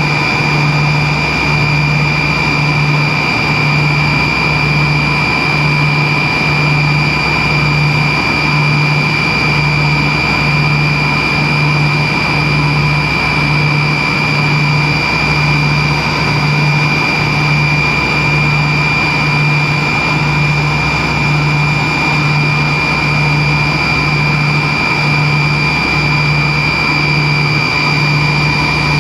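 Cabin noise of a Tupolev Tu-134B-3 in flight: its two rear-mounted Soloviev D-30 turbofans run steadily, with a constant high whine over a rushing noise and a low hum that throbs at a regular pace.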